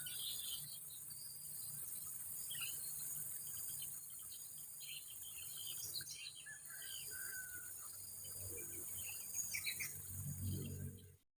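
Faint outdoor ambience: a steady high-pitched insect drone with scattered short bird chirps, cutting off abruptly near the end.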